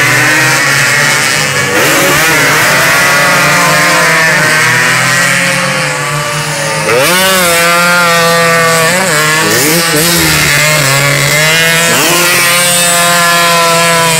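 Two-stroke road-race motorcycles running hard through a hairpin, several engines overlapping. Their pitch repeatedly drops and climbs again as the riders brake for the corner and accelerate out through the gears.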